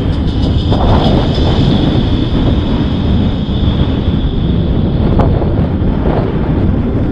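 Steady wind buffeting the microphone, a loud low rumble with no breaks.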